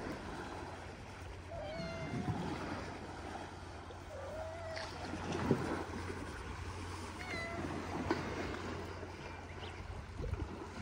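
Cat meowing: three short meows a few seconds apart, over steady outdoor wind and sea noise.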